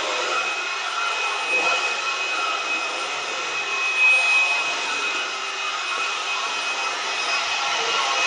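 Vacuum cleaner running steadily: an even whir with a thin high whine.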